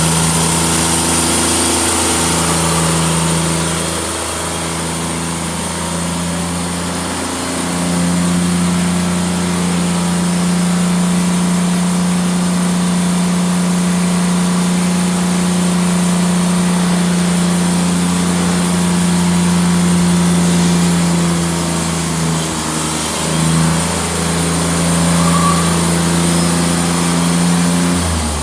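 Portable band sawmill's engine running steadily under load while the band blade cuts, its pitch sagging briefly now and then.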